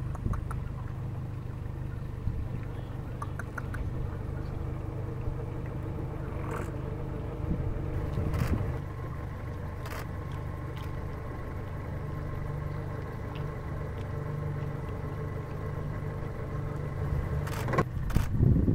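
An engine idling steadily, with a constant low hum. A few sharp clicks fall across it, and there is a louder, rougher stretch near the end.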